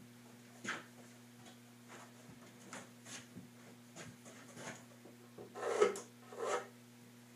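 Wooden flag display case being handled and shifted on a table-saw top: scattered light knocks and scrapes of wood on the table, with two louder clattering knocks close together about six seconds in, over a steady low hum.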